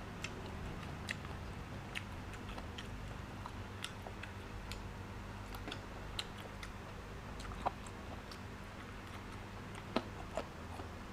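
Close-up chewing of slices of tender raw beef: soft wet mouth sounds with small clicks at irregular intervals, a couple of them a little louder in the second half.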